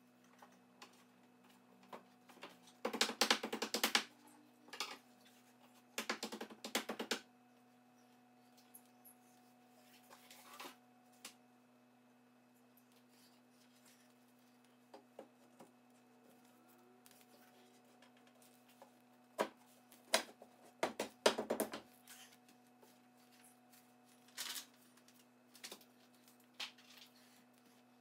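Bookcase assembly work: three bursts of rapid clicking, each about a second long, come about three seconds in, again at about six seconds, and again just past twenty seconds, with scattered single clicks and knocks between them. A faint steady hum lies underneath.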